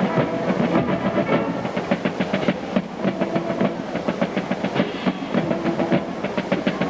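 Marching band drum line playing a fast, even beat, with the horns coming in twice on short held chords, about three and five seconds in.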